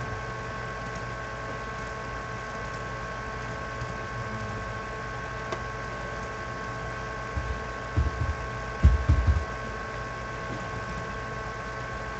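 Steady hum and hiss with several thin, steady high-pitched tones over it. A few low thumps come about eight to nine and a half seconds in.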